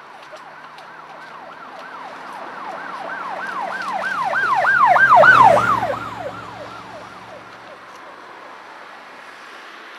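An emergency vehicle's siren in a fast yelp, about three rises and falls a second. It grows louder to a peak about five seconds in, along with the rumble of the vehicle, then drops in pitch and fades as it passes.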